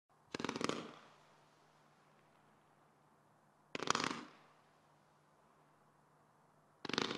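A 100-shot fireworks cake of coloured comets firing in three short volleys, each a rapid string of launch shots, about three and a half seconds apart.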